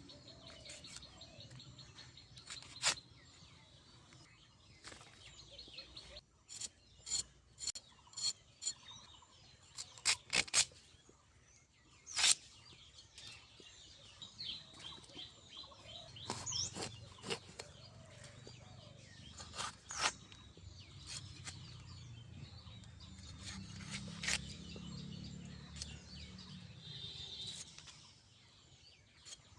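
Fresh vegetables being cut by hand: irregular sharp knocks and scraping of a blade through them. Birds chirp in the background.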